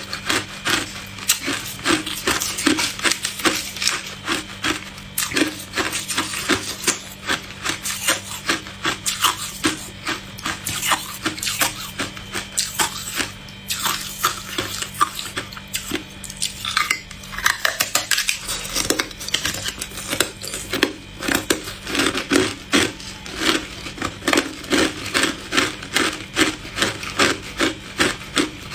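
Hard clear ice being bitten and chewed close to the microphone: rapid crunching, several crunches a second, easing briefly just past the middle.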